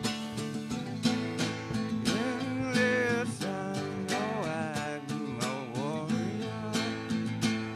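Country-style instrumental passage: acoustic guitar strumming steadily, with a lead melody line that bends and slides in pitch through the middle.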